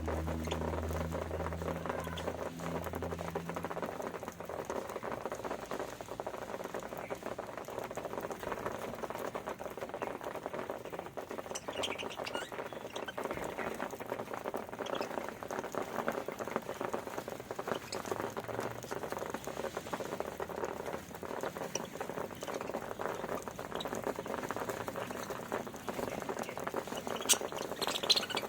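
Budgerigars pecking and cracking grain: a dense, steady stream of small clicks and crackles.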